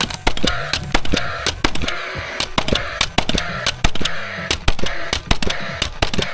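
Timber framing being nailed: a rapid, irregular run of sharp knocks, several a second, as lintels are fixed into the stud walls.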